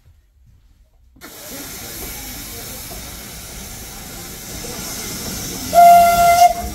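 Narrow-gauge steam locomotive hissing steam steadily, starting suddenly about a second in, then giving one short, loud whistle blast near the end.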